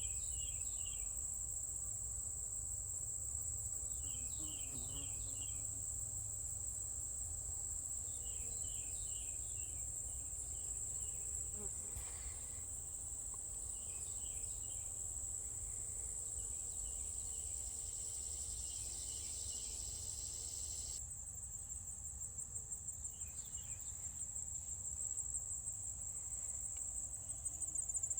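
Insect chorus: a continuous high-pitched cricket trill, with short groups of rapid chirps from another insect repeating every four to five seconds.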